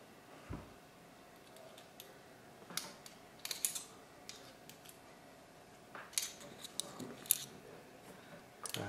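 Scattered, irregular light clicks and short scrapes of small parts and tools being handled while the frame screws of a paintball marker are put in, with a soft low bump about half a second in.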